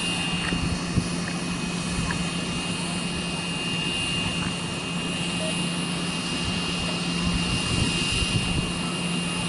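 Dash 8 Q400 turboprop on final approach, its propellers and engines giving a steady low drone with a high-pitched whine above it. Wind rumbles on the microphone underneath.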